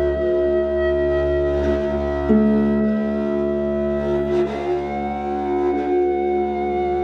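Electric guitar laid flat and played with a wooden stick on the strings, giving a thick, steady drone of several held tones. A louder low tone comes in about two seconds in, and one of the higher tones bends slightly upward about four seconds in, with faint light taps over the drone.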